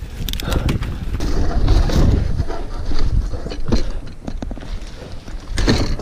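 Mountain bike running fast down a rough dirt trail: steady wind buffeting on the camera microphone, tyres rolling over dirt, and frequent sharp rattles and knocks from the bike over bumps.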